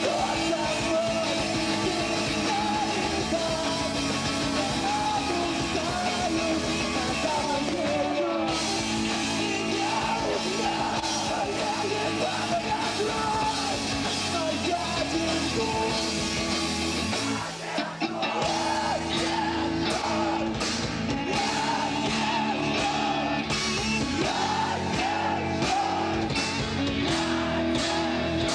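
Live emo band playing loud rock, with sung and yelled vocals over electric guitars and drums. The band drops out for a moment about two-thirds of the way through, then comes back in with cymbal crashes.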